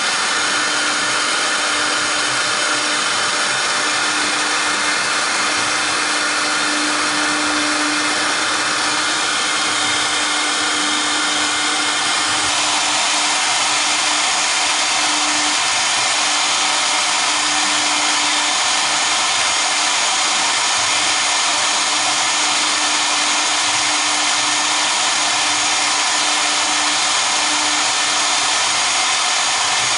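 Both spindles of a 1325 double-spindle CNC router running, their V-bits engraving a board: a steady spindle whine with cutting noise. It grows somewhat louder and fuller about twelve seconds in.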